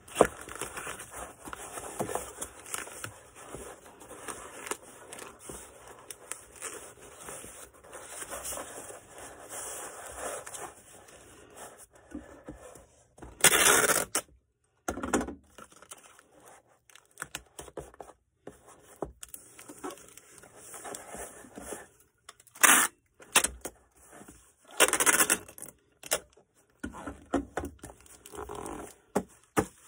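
Packing materials being handled while an order is packed for shipping: continuous rustling and scraping, with three short, loud ripping sounds, one about halfway through and two more near the end.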